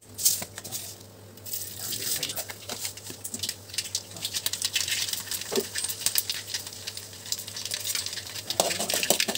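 Hot oil in an aluminium wok crackling and spitting as whole spices and dried red chillies fry in it: the tempering stage. Many quick, sharp pops over a light sizzle, getting busier after the first second or so.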